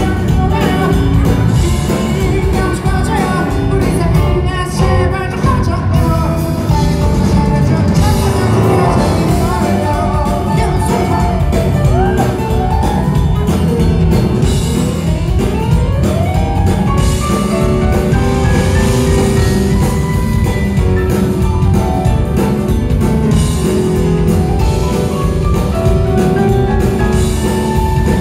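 Live band playing a pop song: a male voice singing over electric keyboard, drum kit and guitar.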